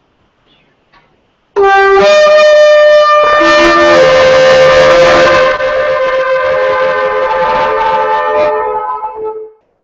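Several shofars blown together in one long sustained blast. One horn starts alone about a second and a half in, others join at different pitches about two seconds later, and all die away near the end.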